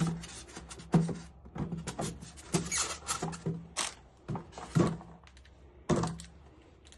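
Irregular clicks, knocks and rustling from handling the tools of a tire plug repair kit, with no steady machine sound.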